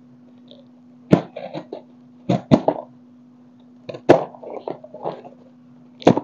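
A box cutter scraping and slicing at the packing tape on a small cardboard parcel. It comes in four short bursts of sharp scratchy clicks, roughly a second or more apart, over a steady low hum.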